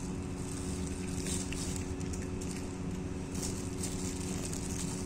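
A clear plastic bag rustling briefly a few times as a hand rummages in it, over a steady low mechanical hum.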